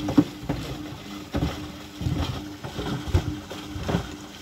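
Old Samsung front-loading washing machine tumbling sneakers in rinse water with fabric softener: irregular sloshing and thuds, a couple a second, as the shoes drop in the drum, over a steady low hum.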